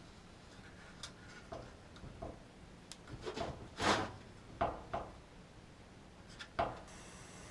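Handling noise: scattered light clicks, knocks and rubs of objects being moved and worked by hand, busiest and loudest around four seconds in.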